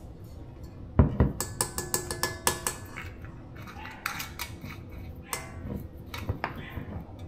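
Metal kitchenware clinking and jangling: stainless steel measuring cups and spoons knocking against each other and the steel mixer bowl, with short ringing tones. A knock about a second in starts a quick run of clinks, and a second, sparser run follows.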